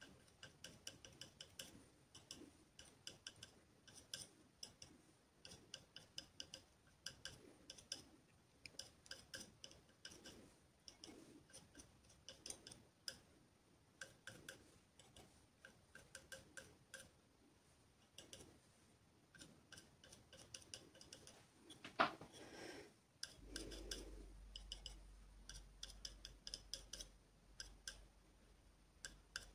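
Faint, quick clusters of light taps as paint is dabbed onto a canvas in small touches, with one sharper click about three-quarters of the way through.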